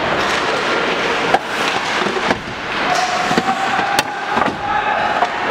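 Ice hockey game heard live in the arena: steady crowd and rink noise with sharp cracks of sticks and puck, the loudest about four seconds in. A steady held tone comes in about three seconds in and stops near the end.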